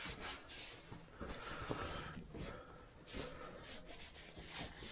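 A cloth rubbed briskly up and down a new wooden hammer handle: a run of faint, short rubbing strokes, a few a second.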